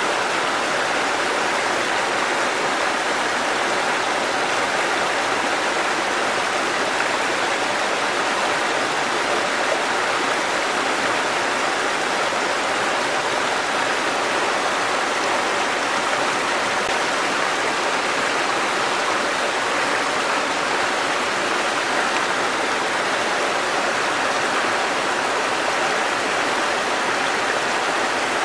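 Small waterfall, a thin curtain of water falling onto rocks and a shallow pool, splashing at a steady rate.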